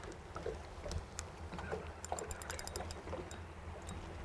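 Water lapping against a small aluminium boat over a low steady rumble, with a short run of faint rapid clicks about two seconds in.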